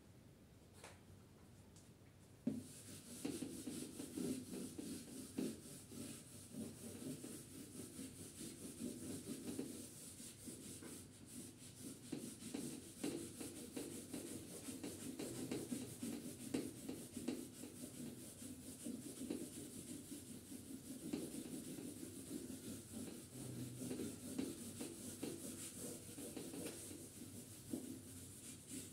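Whiteboard eraser rubbing across a whiteboard in rapid back-and-forth strokes, wiping off marker writing. It starts about two and a half seconds in and goes on with little pause.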